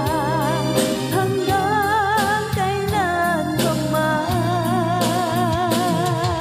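Woman singing a pop ballad into a microphone over instrumental backing music, holding several long notes with wide vibrato.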